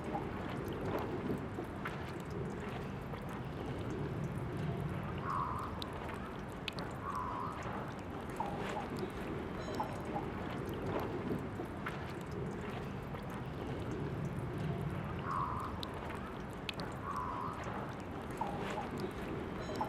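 Water trickling from the tap of a park drinking fountain, a steady splashing flow with small drips and a few brief gurgles.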